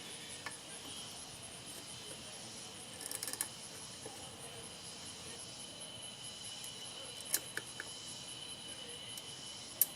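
Faint scattered metallic clicks and a short rattle about three seconds in, as a replacement ignition coil is handled and fitted onto a Briggs & Stratton mower engine. A steady high-pitched whine with a faint pulsing sits under it throughout.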